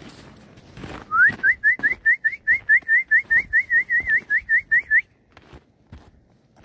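A person whistling a fast run of short, rising notes, about four a second, for some four seconds, then stopping.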